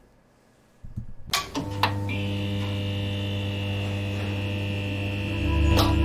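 Electrical buzz sound effect of a neon sign switching on. After a short quiet, a few sharp crackling clicks come about a second in, then a steady electrical hum that grows louder near the end.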